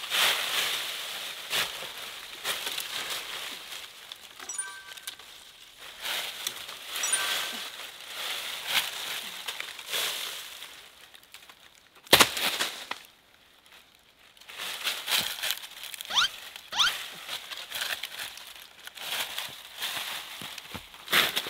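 Dry fallen leaves crunching and rustling under feet and hands as sticks are gathered from the forest floor, with a sharp knock about twelve seconds in.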